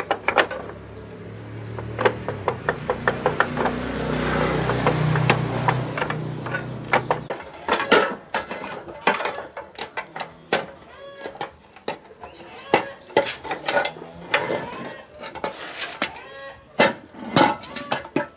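Hand tools and metal motorbike parts clinking and knocking, many sharp taps, as the bike is worked on and taken apart. A low rumble rises and fades over the first several seconds.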